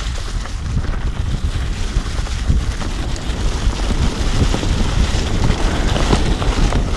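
Loud wind noise on the microphone over the rolling of a Trek Stache 5 mountain bike's wide 29+ tyres on a dirt trail covered in dry leaves, with many small clicks and rattles from the bike.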